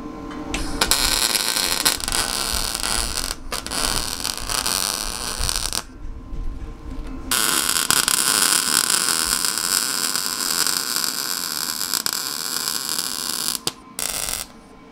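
MIG welder laying beads on 1-inch square steel tubing: a steady crackling hiss of the arc in several runs, stopping briefly about 3.5 s and 6 s in and again near the end as the welder pauses between welds.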